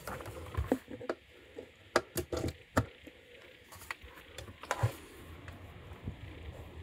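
Power cables being handled and a three-pin mains plug pushed into a wall socket: a string of sharp clicks and knocks with light rustling, the loudest about two seconds in.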